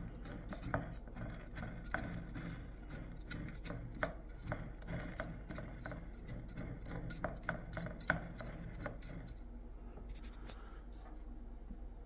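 Carrier furnace inducer motor spun by hand, its shaft coasting in freshly oiled bushing bearings with a faint low rumble and irregular light ticks that thin out after several seconds. The spin is meant to draw the oil into the dried-out bearings.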